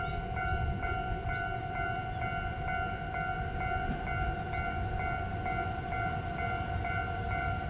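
Electronic level crossing warning bell ringing steadily at about two strokes a second, over the low rumble of a JR Hokkaido H100 DECMO diesel-electric railcar drawing into the station.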